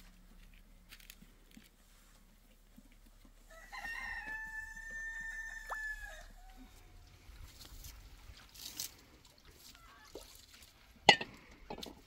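A rooster crows once: one call of about three seconds, held then dropping at the end. Near the end comes one sharp knock, the loudest sound here.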